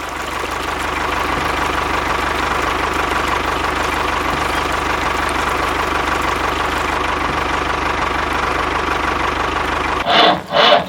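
Small engine running steadily with a fast, even pulse. It builds up over the first second and cuts off suddenly near the end.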